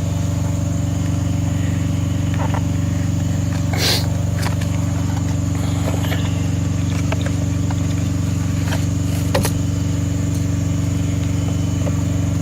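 Semi truck's diesel engine idling with a steady low drone, with a few brief clicks and rustles of boxes and packaging being handled.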